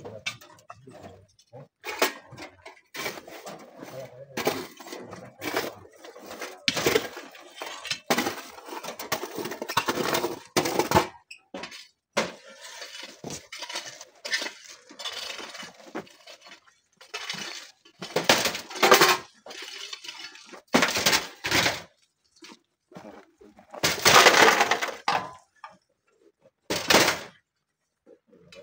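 Shovels and hoes scraping through gravel and stones, rocks clattering into a wheelbarrow in irregular bursts.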